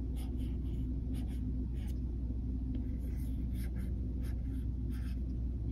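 Stylus tip scratching and tapping on an iPad's glass screen in short, irregular strokes while writing cursive, over a steady low hum.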